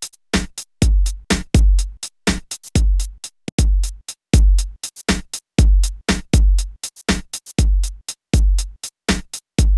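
Music: an electronic drum-machine beat of sharp hits with deep bass-drum kicks about every 0.7 seconds.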